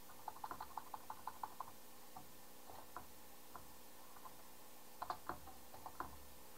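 Computer keyboard typing: a quick run of keystrokes in the first second and a half, then scattered single keys and a few more about five seconds in, over a faint steady hum.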